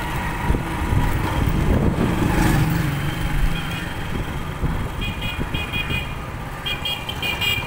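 Motorcycle running at low speed while being ridden. From about five seconds in, a horn toots in a run of short, high beeps.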